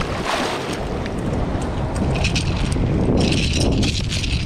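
Wind on the microphone and surf washing, with water splashing as a small striped bass thrashes in the shallows while it is grabbed by hand.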